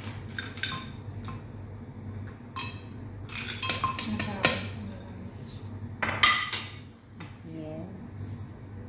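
Ice cubes being dropped into a glass blender jar of milk and avocado: a scatter of clinks and knocks against the glass, with a cluster about four seconds in and the loudest knock about six seconds in.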